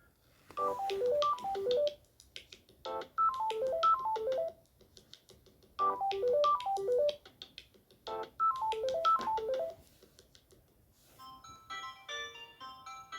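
A Samsung Galaxy A16 stock One UI 6.1 ringtone: a short melodic phrase of quick notes, played four times with short gaps between. About eleven and a half seconds in, a different ringtone with faster, denser notes starts.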